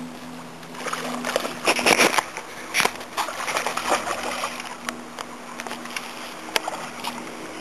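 A hooked carp splashing and thrashing at the water's surface close to the bank as it is played in, in irregular bursts, loudest about two seconds in. A faint steady low hum runs underneath.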